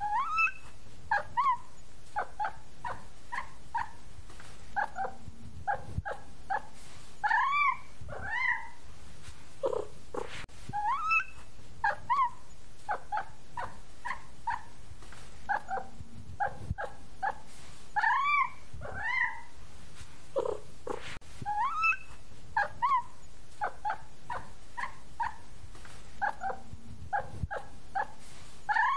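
Short, high cat mews and chirps, one after another, in a sequence that repeats about every ten and a half seconds like a looped sound track.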